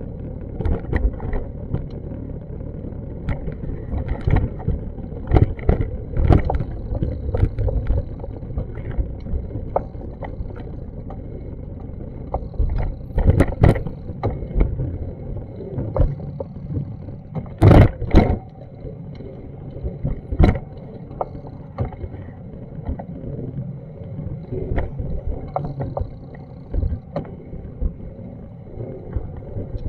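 Outdoor street ambience picked up by a handheld action camera: a steady low rumble with irregular knocks and thumps, the loudest a couple of sharp ones around the middle.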